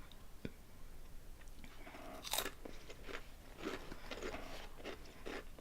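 Crunchy honey-flavoured potato snack being bitten and chewed: one sharp crunch about two seconds in, then a run of smaller chewing crunches.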